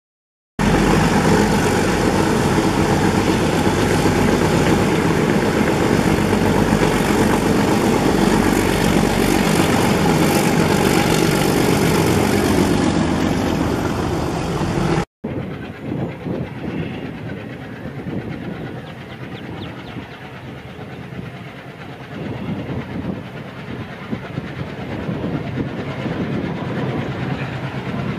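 A passenger train runs close by, coaches clattering over the track, with its diesel locomotives working under load. The sound cuts off suddenly about halfway through. Then an ALCo WDG-3A diesel locomotive approaches, its engine chugging and growing louder.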